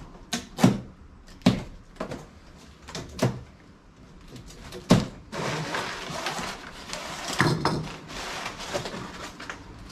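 A cardboard shipping box and its plastic packing straps being handled: about seven sharp knocks and snaps in the first half, then a steady rustling scrape from about five seconds in as the straps are pulled free.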